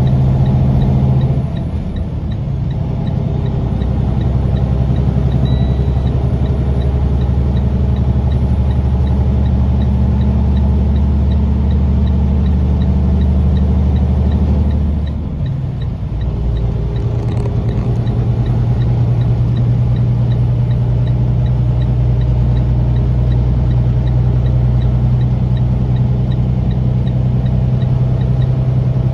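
Semi truck's engine running steadily as heard from inside the cab, with road noise. Its note changes about halfway through, after a brief dip in level.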